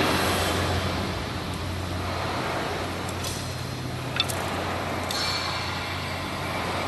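Bamboo stick-making machine running with a steady low hum and noise, with a few sharp clicks in the middle.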